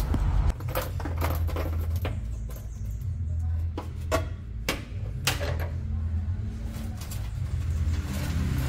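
Scattered sharp clicks and short scrapes of hardened dirt and bits of broken glass being dug out from inside a Volkswagen Kombi door, over a steady low hum.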